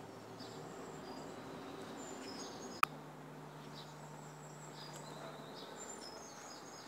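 Faint outdoor background ambience with scattered short, high chirps, and a single sharp click about three seconds in.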